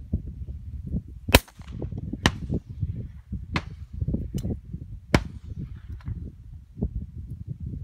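Shotguns firing at ducks in flight: four sharp shots in about four seconds, each trailing off in an echo, with a couple of fainter, more distant shots among them. A constant low rumble runs underneath.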